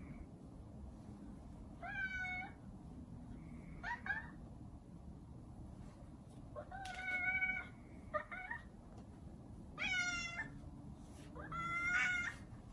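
Sphynx cat meowing about six times, roughly every two seconds; some calls are short and others are drawn out.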